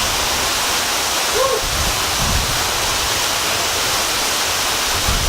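A mountain waterfall rushing steadily, a dense even wash of falling water, with a faint short voice call about a second and a half in.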